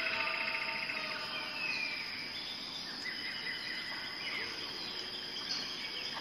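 Birds chirping and whistling over a steady background of insect chirring, with a rapid trill near the start and a falling whistle about two seconds in.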